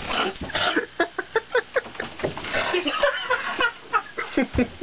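Men laughing heartily in quick repeated bursts, several a second, in a small cramped space.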